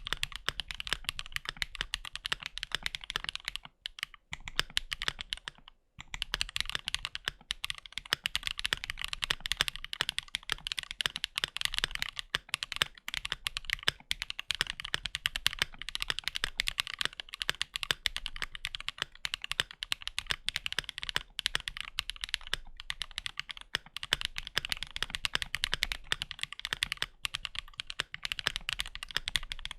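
Keychron Q4 60% mechanical keyboard with Zaku switches, PBT keycaps and lubed stabilizers, typed on fast and continuously as a sound test. There are two brief pauses, about four and six seconds in.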